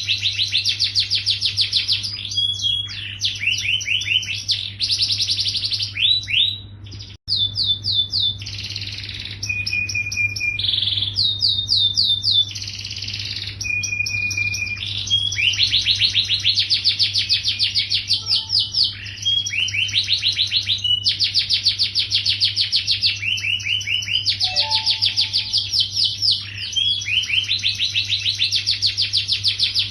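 Yellow domestic canary singing a continuous song of fast trills and rolls, with a few held whistled notes; the song cuts out briefly about seven seconds in.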